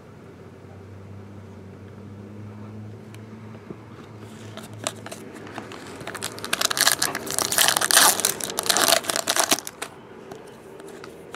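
Foil wrapper of a trading-card pack crinkling and tearing as it is ripped open by hand: a dense crackle lasting about three seconds, starting a little past the middle.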